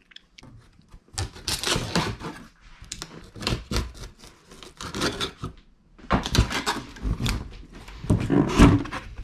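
Cardboard box packaging being torn and pried open: a run of irregular ripping, scraping and rustling noises, with a brief pause partway through.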